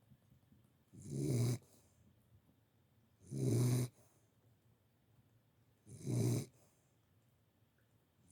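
Sleeping dog snoring: three snores, each about half a second long, coming roughly every two and a half seconds.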